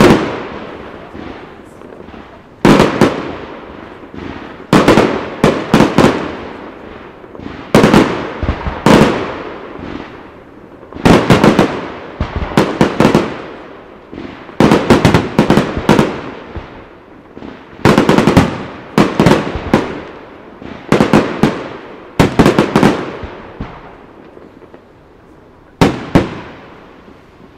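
Professional display fireworks: aerial shells bursting in quick clusters of sharp bangs about every one to two seconds, each cluster trailing off in echo. A single last bang comes near the end.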